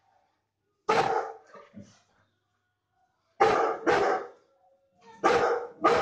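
Bullmastiff barking: one bark about a second in with two smaller ones trailing after it, then two pairs of barks, the barks in each pair about half a second apart.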